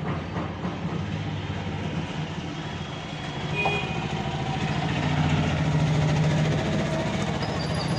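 Steady low rumble of a motor vehicle's engine running, swelling a little about four to five seconds in.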